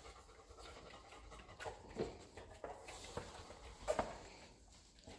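Faint, scattered taps and scuffs of a dog and its handler moving over a concrete floor, the loudest tap about four seconds in.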